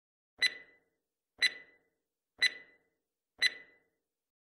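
Ticking-clock sound effect: four short, bright ticks, one every second, counting off the pause left for listeners to answer a question.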